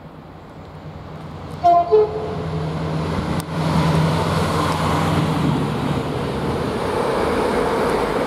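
Freight locomotive's two-tone horn: two short notes, high then low, about two seconds in. The container freight train then runs past, its rumble building and then staying steady.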